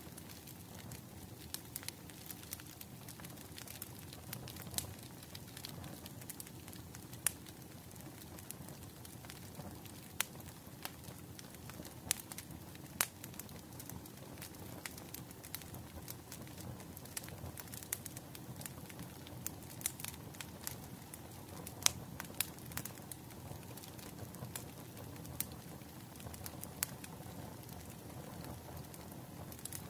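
Wood fire burning with a soft steady rumble and many sharp crackles and pops at irregular moments.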